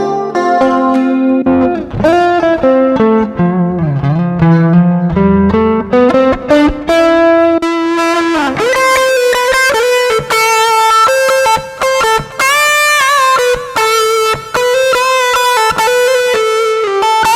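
Electric bass played through a Zoom 708 II bass multi-effects pedal: a melodic line of single notes with slides and bends, low notes at first, then a rising glide about eight seconds in to a higher run of quicker notes.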